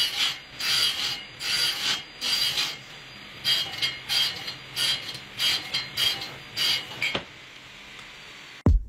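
Table saw blade cutting MDF in a rapid run of about a dozen short passes, roughly one every half second, over the saw's steady running; the cutting stops about seven seconds in.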